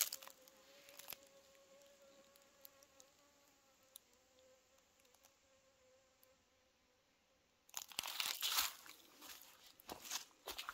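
A flying insect buzzing in a steady, slightly wavering hum for about seven seconds. Then footsteps crunch on dry leaf litter.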